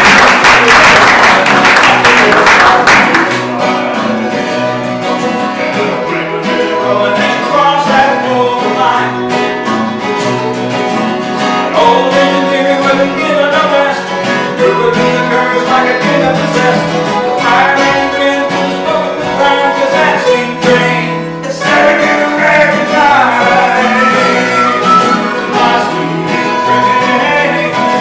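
Live acoustic folk band playing: steel-string acoustic guitar, mandolin and harmonica. The sound is louder and fuller for the first three seconds, then settles.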